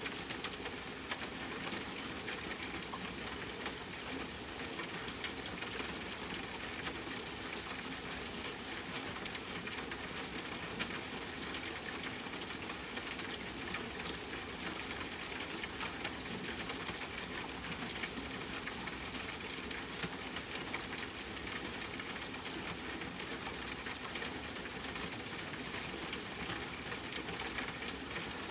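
Steady rain falling, a dense even hiss full of small drop ticks, with one sharper tick about twelve seconds in.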